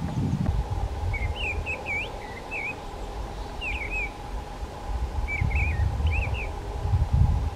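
Bird chirping in short groups of quick up-and-down twitters, about four bursts, over a low wind rumble on the microphone.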